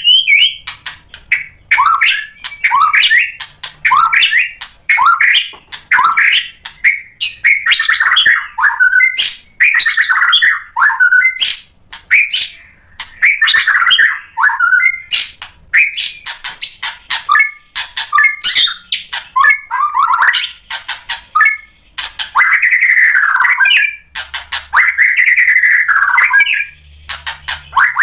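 White-rumped shama singing loudly and almost without pause in full song, running through a varied repertoire: quick changing phrases of whistles and sharp ticking notes, with two long arching whistled phrases near the end.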